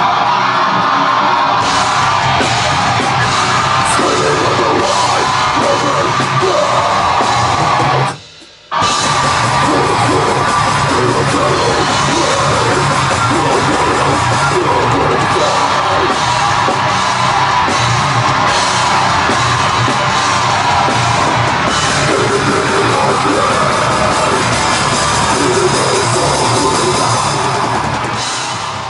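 Heavy metal band playing: distorted electric guitars, drum kit and screamed vocals. The band stops dead for under a second about eight seconds in, then crashes back in; the music fades near the end.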